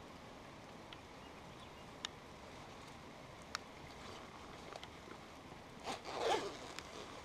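A zipper pulled once in a short rasping run about six seconds in, over a faint steady hiss, with a couple of small sharp clicks earlier on.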